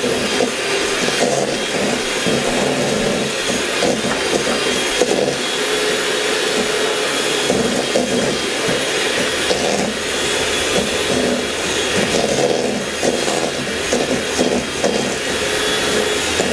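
Electric hand mixer running steadily, its beaters churning through butter and brown sugar in a stainless steel bowl while creaming them together.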